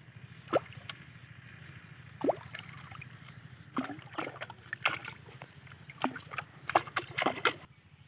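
Water plopping and splashing around a plastic bottle fish trap in shallow weedy water: a couple of single drip-like plops at first, then a quicker run of splashes and sloshes, which cuts off near the end.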